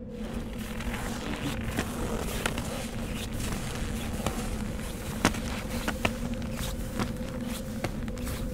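Touring skis sliding and scraping over snow, with sharp irregular clicks and taps from the pole plants and bindings, the loudest about five seconds in. A steady low hum runs underneath.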